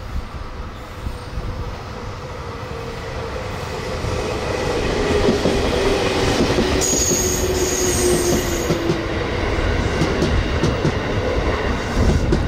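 JR Central 311 series electric train coming into the station, its running noise growing louder, with a tone that slowly falls in pitch as it slows. A brief high squeal comes about seven seconds in.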